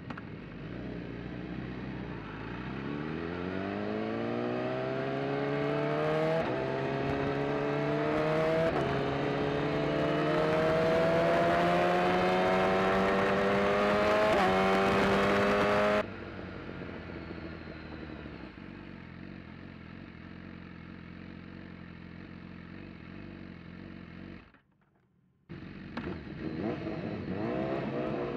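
Race motorcycle engine recorded onboard, accelerating hard off the start and up through the gears, with three upshifts where the pitch drops and climbs again. About halfway through it cuts off suddenly to a quieter, steadier engine sound. After a brief silence, the engine revs rising again near the end.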